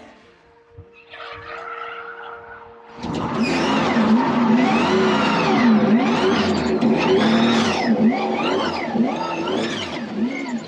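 A drifting car's engine revving hard, its pitch swinging up and down about once a second, starting about three seconds in, with tyres squealing.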